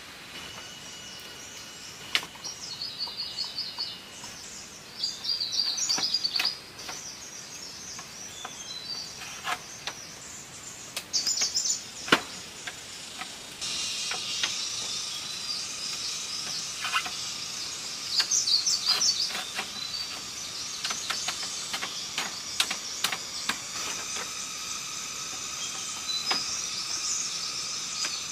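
Woodland ambience: birds chirping and trilling on and off, with a few sharp knocks. About halfway through, a steady high-pitched insect chorus joins in.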